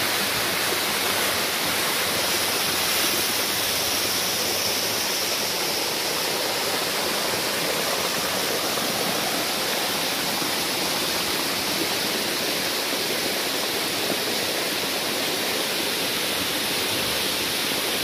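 Stream water rushing down a bare rock slab at the head of a waterfall: a steady, close rush of falling water.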